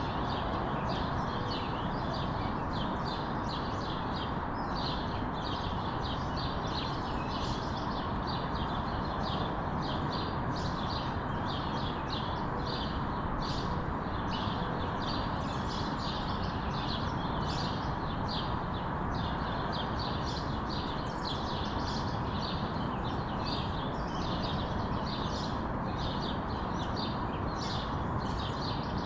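Many small birds chirping rapidly and continuously in a morning chorus, over a steady background noise.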